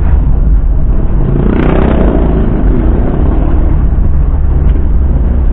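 Steady low rumble of a car driving, heard from inside the cabin through a dashcam's microphone. About a second and a half in, a louder engine sound swells and fades over roughly a second and a half.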